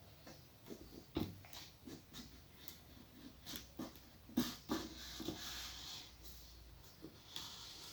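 Faint scraping and rubbing, with scattered small clicks, as a tool cuts along the adhesive seam holding the iMac's display glass to its frame.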